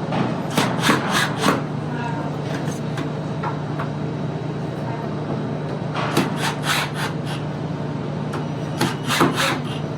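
Flat-pack cabinet parts being handled: three clusters of quick wooden knocks and clicks, with some rubbing of board on board, over a steady low hum.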